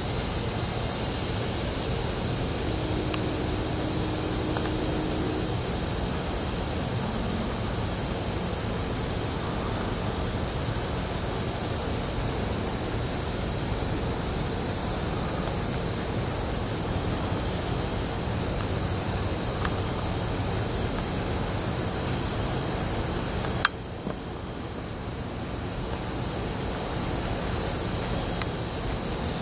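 Crickets and other insects chirping steadily over a continuous low rumble. The rumble drops away suddenly after a click about 24 seconds in, leaving mostly the insects.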